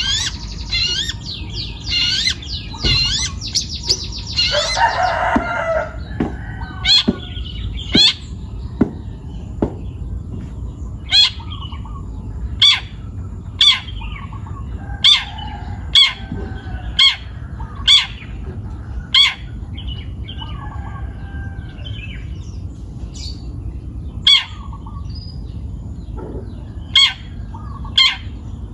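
Long-tailed shrike (cendet) singing. It opens with a quick run of warbled, chattering phrases, then gives loud, sharp, short calls repeated about once a second.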